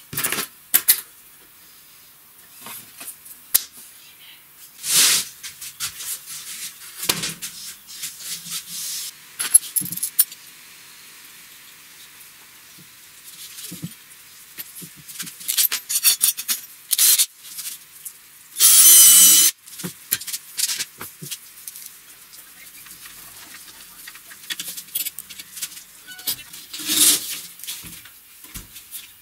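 Small steel hinges and metal fittings clinking and rattling as they are handled on wooden boards, with scattered clicks and light knocks. About two-thirds of the way through comes a loud, noisy rush lasting about a second.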